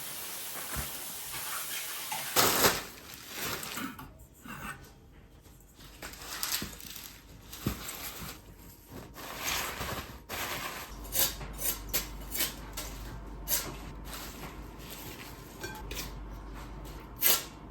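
A kitchen tap runs briefly as kale is rinsed, then cuts off. After that come scattered clicks, knocks and clatter of a bowl and utensils being handled on the counter.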